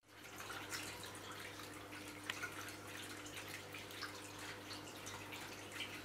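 Water of a stone column fountain trickling down the polished quartzite column into its stone basin, with many small drips and splashes, over a faint steady low hum. The sound fades in over the first half second.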